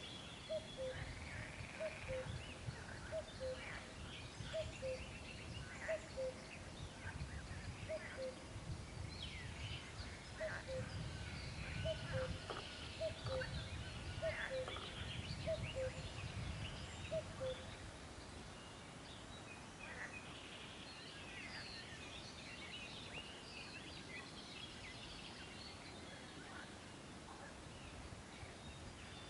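A bird repeats a falling two-note call about once a second, stopping a little past halfway. Small birds chirp and twitter high above it, over a low rumble of wind.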